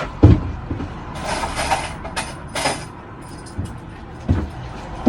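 Handling noises at a key-cutting machine as a key is set in its clamping jaws: a knock, two short metallic scrapes and a click. The cutter motor is not running.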